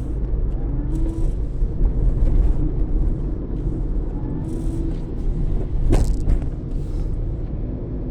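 Toyota Etios running, a steady low rumble of engine and road noise, with one sharp click about six seconds in.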